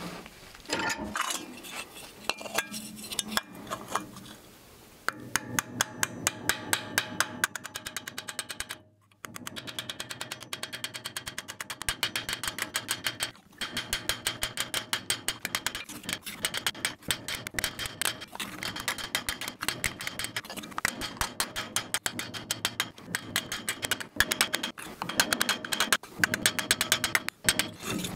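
Body hammer tapping dents out of a Ford Model A's metal hubcap held over a steel bar clamped in a vise: rapid, even light taps, several a second. The first few seconds hold irregular metal clanks as the vise is tightened on the bar.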